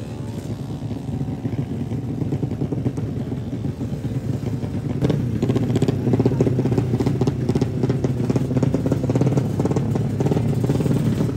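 Drag-race motorcycle engine running at the start line, a rough, pulsing drone that grows louder and rougher about halfway through as it is revved.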